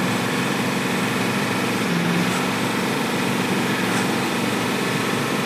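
1989 Ford E-350's 7.3-litre IDI diesel V8 running steadily at cruise around 55 mph, heard from inside the cab; the engine is running just fine.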